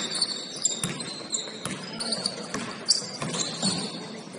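Basketball bouncing on a gym floor during play: irregular thumps, the loudest about three seconds in, with short high squeaks over the hall's background.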